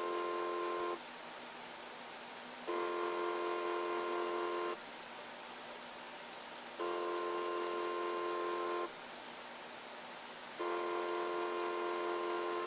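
Small stepping motor fitted inside a TOMIX N-gauge electric turnout, giving a steady whine while it slowly throws the points. Each run lasts about two seconds and comes roughly every four seconds as the points move back and forth.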